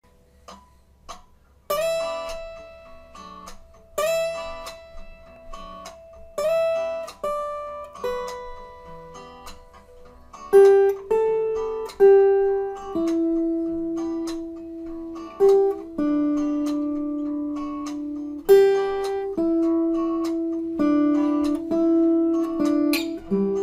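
Solo acoustic guitar improvising in E minor: single picked notes and short melodic phrases, each ringing out and fading. It starts with a few soft plucks, and firmer notes come in about two seconds in.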